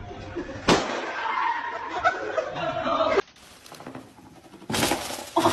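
A balloon being blown up by mouth bursts with a single sharp bang about a second in, followed by people's voices. The sound drops away abruptly about three seconds in, and a loud half-second of noise comes near the end.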